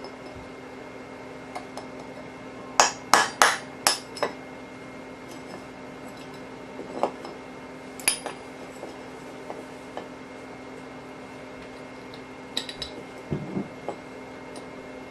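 Hammer striking a steel punch to drive old rivets out of an AK-47 receiver trunnion: a quick run of about five sharp metal-on-metal strikes a few seconds in, two single strikes a few seconds later, then a few lighter clinks near the end.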